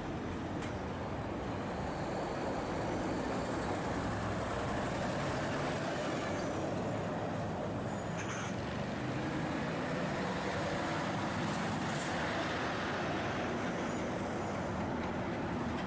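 Heavy lorry diesel engines running amid steady road traffic noise, with a brief hiss about eight seconds in.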